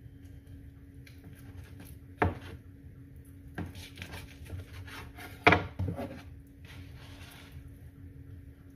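A kitchen knife cutting through a rolled log of cinnamon roll dough on a wooden cutting board, with soft scraping and sharp knocks of the blade against the board. The loudest knocks come about two seconds in and again about five and a half seconds in.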